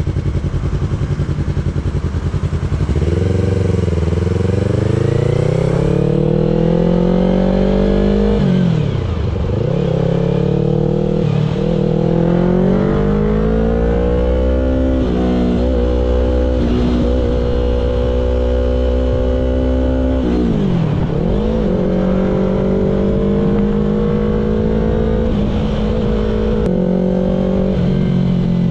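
Yamaha R3's parallel-twin engine pulling through the gears. The pitch climbs under throttle, drops sharply and picks up again at about 9 and 20 seconds in as it shifts up, and otherwise holds steady at cruising speed.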